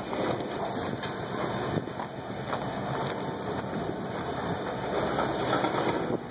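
Freight train of open-top hopper cars rolling past close by: a steady rumble and rattle of steel wheels on the rails, with a few sharp clicks.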